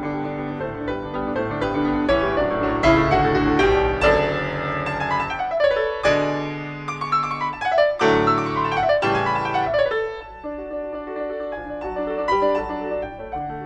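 Background piano music: a solo piano piece with flowing runs of notes, including falling figures about six and eight seconds in.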